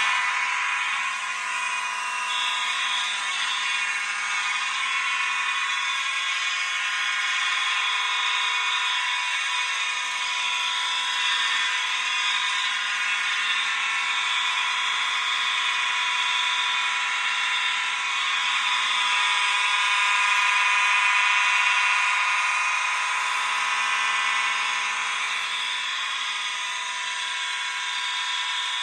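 A collection of fire alarm notification appliances sounding all at once: horns, horn strobes such as a System Sensor horn strobe, and a Wheelock motor bell. Together they make one loud, steady, layered din of many tones, with no breaks.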